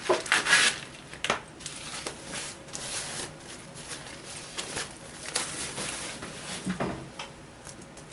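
Replacement keyboard and palmrest plastic assembly being handled and set in place: irregular rubs, scrapes and light clicks, loudest about half a second in.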